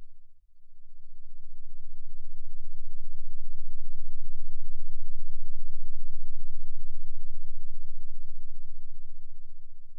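Domestic cat purring: a steady, low, rapidly pulsing rumble that fades out briefly about half a second in, then swells back up and holds.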